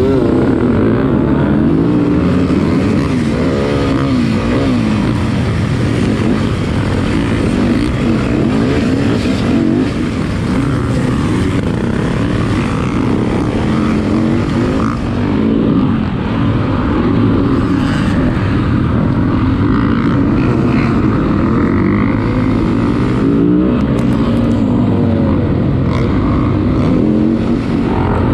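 Dirt bike engines at full throttle in a race: the nearest engine's pitch rises and falls again and again as it accelerates and shifts gears, with other dirt bikes in the pack around it.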